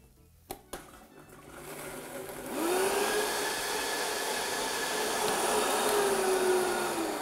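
Countertop blender pureeing coconut milk with lemongrass, ginger and lime leaves into a curry paste: two clicks near the start, then the motor climbs in speed over about two seconds and runs steadily at high speed with a steady whine.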